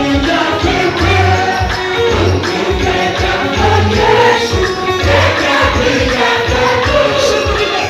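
Live gospel worship music: a group of voices singing over a steady low drum beat, with jingling percussion.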